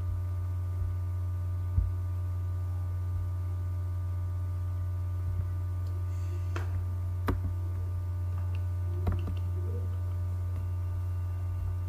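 Steady electrical hum with a faint buzz of higher tones over it, broken by a handful of sharp computer mouse clicks.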